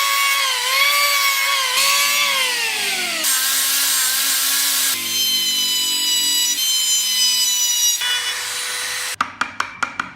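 Handheld electric power tool cutting wood: a loud motor whine that dips and slides down in pitch as it bites, heard in short segments that cut off abruptly. Near the end comes a quick run of sharp taps, about five a second.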